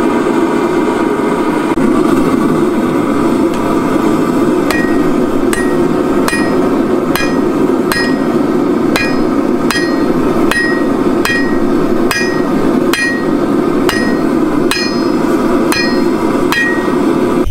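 Hand hammer striking a glowing steel billet on an anvil to set a forge weld: about twenty blows at roughly two a second, starting about five seconds in, each with a short metallic ring. Under it runs the steady rush of the propane gas forge's burner.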